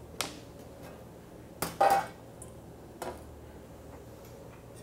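Kitchen utensils clattering on a work surface as they are put down and picked up: a few short knocks, the loudest a double clatter nearly two seconds in.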